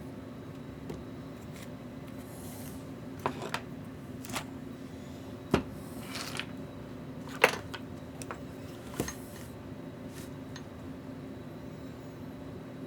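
Small hand tools and parts being handled on a workbench: scattered sharp clicks and taps, the loudest about five and a half and seven and a half seconds in, over a steady low hum.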